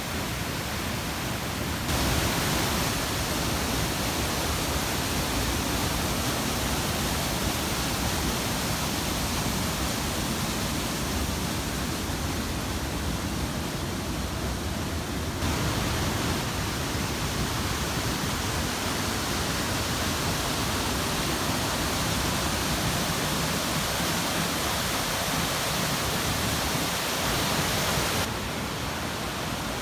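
Steady rushing roar of a waterfall, even and unbroken, changing in level abruptly about two seconds in, about halfway through and near the end.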